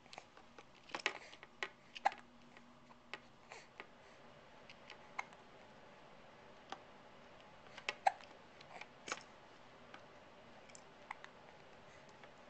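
A baby hiccupping: short, sharp hics at uneven intervals, the clearest about two and eight seconds in, with faint clicks between.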